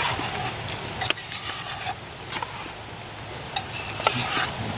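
Steady hiss of rain, with a few light clicks and scrapes about a second in and again near the end.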